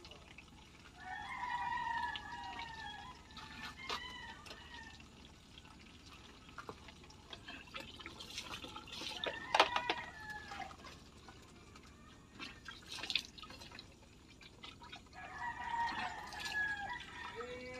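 A rooster crows twice, about a second in and again near the end, each crow lasting a couple of seconds. In between, water drips and splashes, broken by a few sharp clacks, the loudest around the middle.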